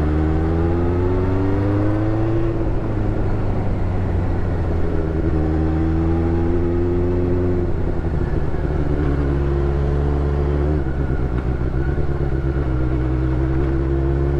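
Benelli 600GT's inline-four engine running as the motorcycle rides along. Its revs climb three times, and each climb breaks off suddenly.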